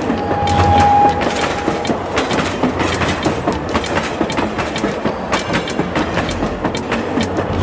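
Train running on rails, a dense clatter of wheel clicks over a low rumble, with a steady whistle-like tone in the first two seconds.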